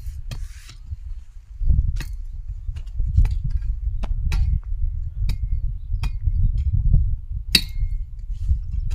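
Hoe striking and chopping into hard, dry clay soil while weeding, a string of sharp strikes roughly once a second, over a steady low rumble.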